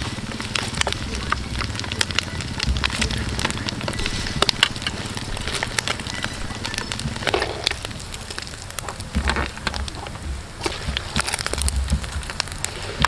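Hot oil in a wok deep-frying battered baby frogs: a steady sizzle with many sharp crackles and pops.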